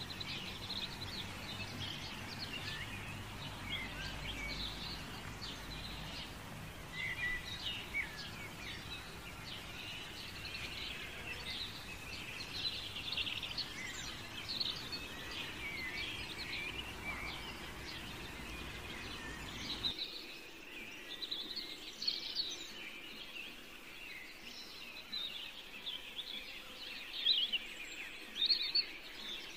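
Birds chirping, many short calls going on throughout, over a low background hum that drops away about two-thirds of the way through.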